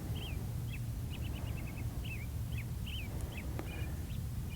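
Small birds chirping in short, repeated notes, including a quick run of chirps about a second in, over a steady low outdoor rumble.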